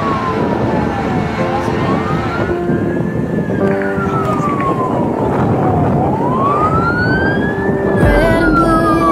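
Emergency vehicle siren on a slow wail, its pitch sliding down and back up about once every four to five seconds, over a few steady held tones. Near the end a second, harsher pulsing sound joins it and the level rises a little.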